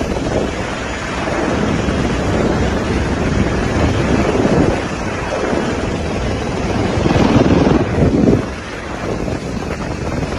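Helicopter noise heard from on board, with wind buffeting the microphone and swelling in gusts every second or two.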